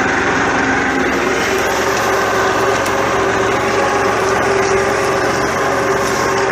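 Massey Ferguson 1433 compact tractor's diesel engine running steadily at a constant speed.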